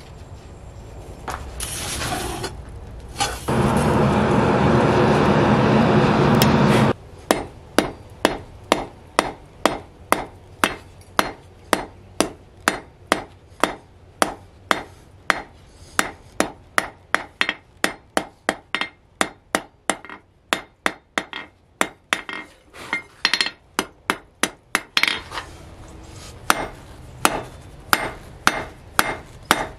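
Hand hammer striking a red-hot steel rod on an anvil, sharp ringing blows about two a second, drawing the end out to a taper. Earlier, a loud steady noise runs for about three seconds and cuts off suddenly before the hammering begins.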